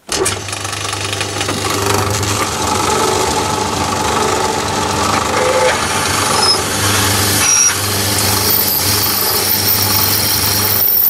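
Metalworking lathe running steadily under power while a twist drill fed from the tailstock bores through a spinning aluminium bar. This is the pilot drill, about 50 thou under the finished half-inch size, or the finishing drill.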